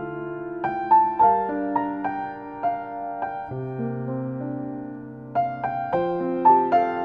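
Soft instrumental piano music, a melody over sustained chords. It thins to held low notes midway, then fuller chords return.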